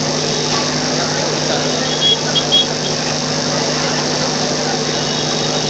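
Dense crowd chatter over a steady low engine hum, with three short high-pitched tones about two seconds in.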